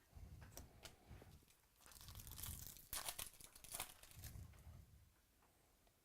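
Foil trading-card pack wrappers being torn open and crinkled, with the loudest crackling about two to four seconds in and soft handling bumps around it.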